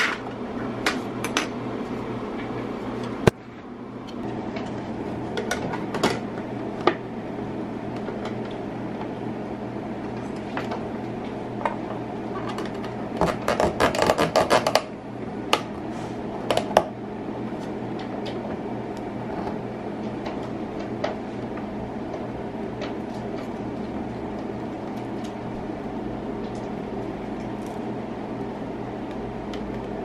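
Clear plastic parts of a pet water fountain clicking and knocking as they are fitted together, with a dense run of clatter about halfway through, over a steady hum.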